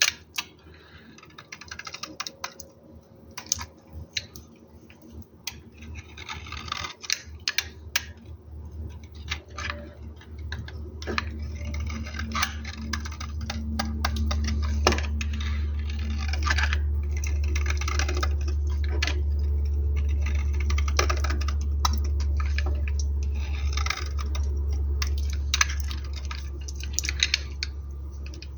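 A blade cutting into soap, making dense, irregular crisp crackles and clicks as it slices the bar into cubes. A steady low hum rises underneath about a third of the way in and fades near the end.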